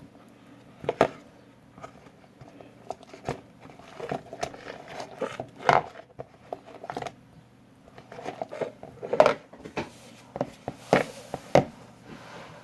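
Homemade slime being mixed and worked by hand after lotion is added: irregular sticky clicks and squelches, a few louder ones about a second in, near six seconds, and twice between nine and eleven seconds.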